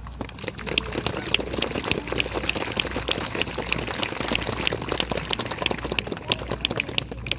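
Audience applauding: a dense patter of many hands clapping, with a few sharper single claps standing out.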